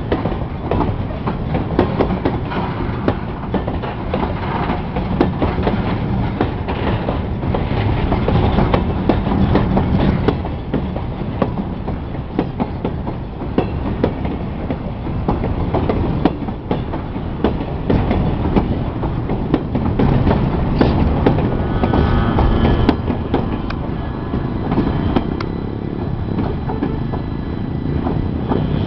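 Freight wagons of a long grain train rolling past close by. Their wheels clatter over the rail joints in a continuous run of rapid clickety-clack knocks.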